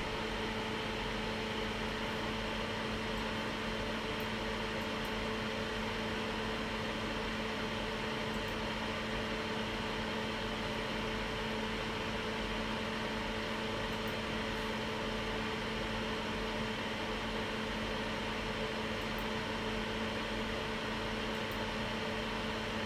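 Steady whir and hiss of a small electric blower fan on the microsoldering bench, with a low steady hum underneath.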